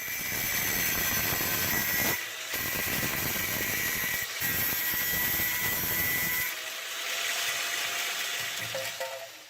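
A handheld power tool running under load with a steady high whine, dipping briefly twice and dying away near the end: a stage of the restoration's rust removal or finishing work.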